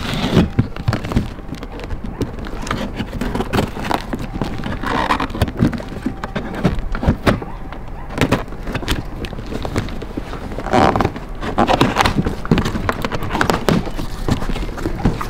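A cardboard box being cut open with a box cutter: the blade scraping through packing tape, with many short knocks and rustles of the cardboard and a few louder tearing scrapes as the tape and flaps give way.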